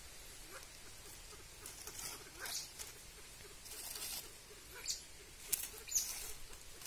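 Faint, scattered rustling and crackling in dry bamboo leaf litter, with a few sharper ticks near the end.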